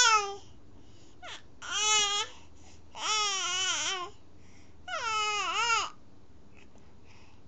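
Infant fussing: the tail of a loud cry, then three drawn-out complaining wails with a wobbling pitch, each up to about a second long, with short pauses between.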